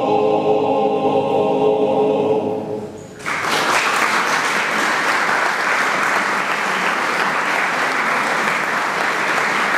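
Male voice choir holding the final chord of a song, which fades out about three seconds in. Audience applause then starts suddenly and goes on steadily.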